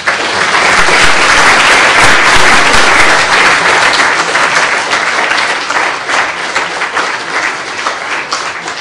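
Audience applauding a speaker, a dense patter of many hands that starts suddenly, is loudest in the first few seconds and then slowly dies away.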